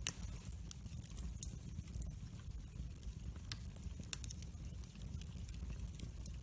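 Split firewood logs burning in a fire pit, crackling with irregular sharp pops over a low steady rumble. The strongest pop comes right at the start.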